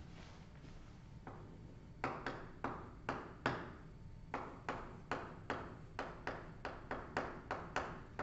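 Chalk writing on a blackboard: a run of sharp taps, about three or four a second, starting about two seconds in.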